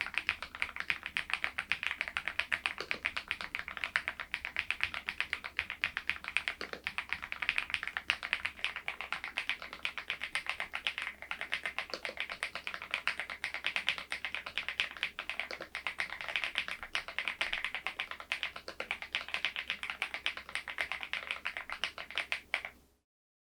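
Rapid, continuous typing on an Epomaker TH80 V2 PRO mechanical keyboard: a dense stream of crisp keystrokes that cuts off abruptly near the end.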